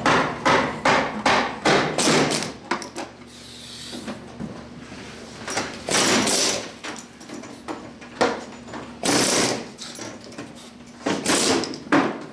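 Hammering on a race car's body during teardown: a quick run of sharp blows at first, then several longer, noisier bursts of banging.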